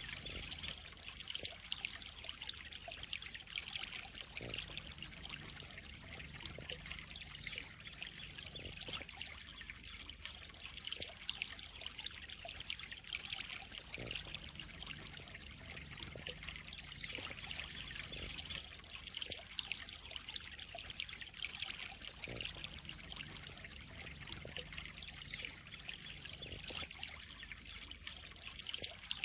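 Steady trickle of water running into a koi pond, with small scattered drips and splashes.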